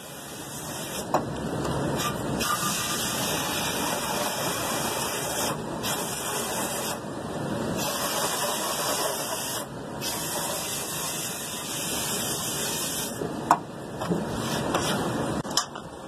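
Hose spraying a hard stream of water onto a dirty HVAC blower wheel, washing out black crud and coil-cleaner foam. The spray cuts off briefly a few times.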